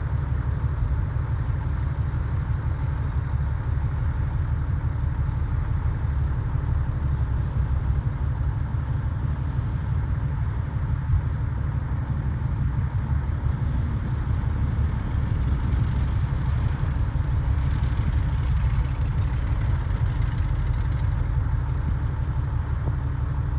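Diesel engine of heavy earthmoving equipment running steadily with a deep, dense rumble, a little more hiss coming in from about two-thirds of the way through.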